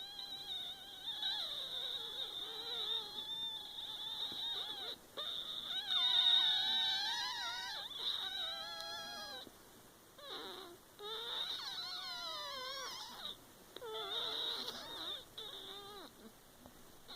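A person making a high, whining vocal sound whose pitch wavers and slides up and down, held for long stretches with a few short breaks in the second half.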